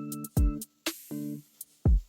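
Background electronic music with a drum-machine beat: deep kick-drum hits about every half second under short pitched chords.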